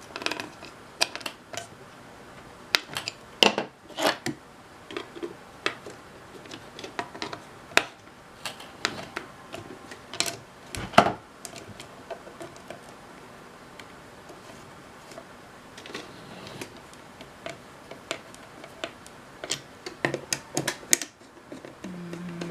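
Irregular clicks, taps and knocks of hands fitting the cover back onto a Sony Betacam SP camera after servicing, with one louder knock about halfway through.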